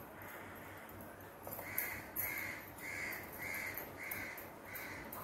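A crow cawing over and over, about two caws a second, starting nearly two seconds in.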